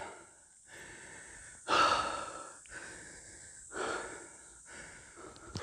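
A man breathing hard, about five loud breaths in a row at roughly one a second, the loudest about two seconds in. He is winded from a hot, steep uphill hike.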